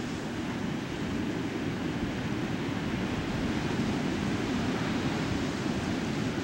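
Ocean surf breaking and washing up the beach, a steady rush, with wind buffeting the microphone.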